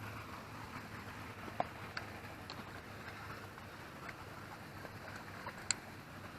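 Quiet lakeside background hiss with a few faint, light clicks.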